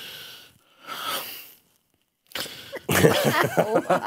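Two short breathy huffs, then people laughing from about two and a half seconds in.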